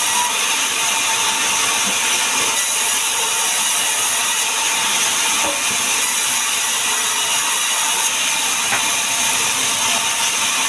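Sawmill band saw running steadily with its blade cutting through logs, a constant even noise.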